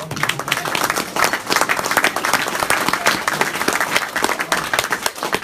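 A small group of people applauding. A few scattered claps swell into dense clapping that fades out at the end.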